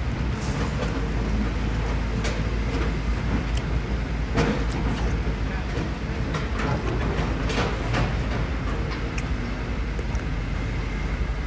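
Diesel engine of heavy construction machinery running steadily, with scattered sharp knocks and clanks over it.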